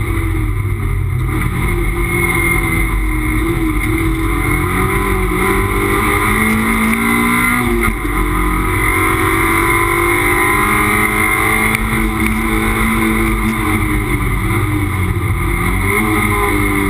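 Toyota MR2 race car's mid-mounted four-cylinder engine heard from inside the cockpit, its revs rising and falling again and again through gear changes and corners over steady road and wind noise. The engine note dips briefly about eight seconds in.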